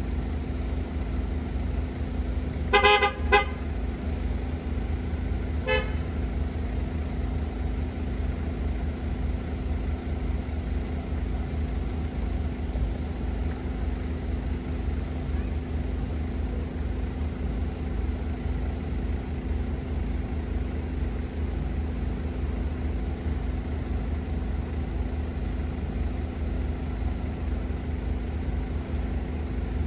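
Northern Ireland Railways Class 3000 diesel multiple unit idling with a steady low rumble. About three seconds in, its horn gives two short blasts close together, then a fainter short toot about three seconds later.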